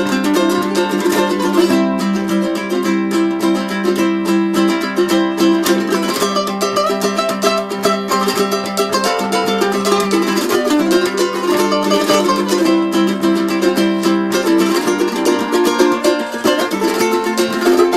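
Background music: a plucked-string instrumental, quickly strummed over steady held notes.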